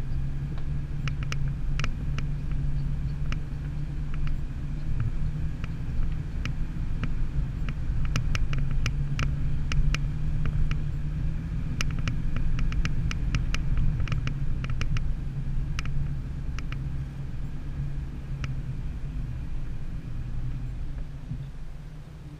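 Four-wheel-drive vehicle's engine and drivetrain running at low speed on a rough dirt track, a steady low rumble, with scattered sharp clicks and knocks as it jolts over the ruts. The sound eases off near the end as the vehicle slows behind the convoy.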